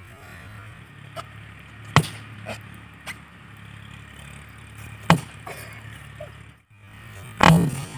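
Rubber balloons bursting in the heat of a fire of burning dry leaves: sharp pops a few seconds apart, the loudest near the end, with fainter crackles of the burning leaves between them.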